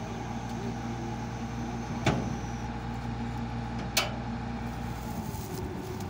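Laverda 3890 combine harvester's engine running steadily with a hum, with two sharp knocks about two seconds apart; its note changes slightly near the end.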